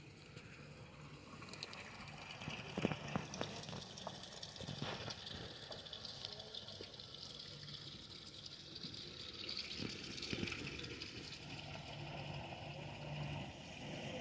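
Water splashing and gushing as a steady hiss, with a few sharp knocks about three seconds in and again near five seconds, over a faint low hum.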